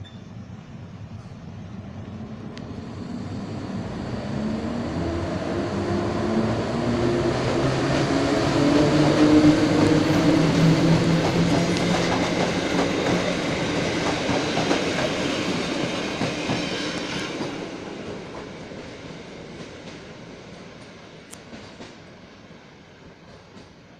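Polish electric locomotives, EU07-359 double-headed with a second PKP Cargo unit, hauling a passenger train past as it gathers speed. The traction motors whine, rising in pitch, over the rumble of the wheels on the rails. It grows louder to a peak about ten seconds in, then fades as the train draws away.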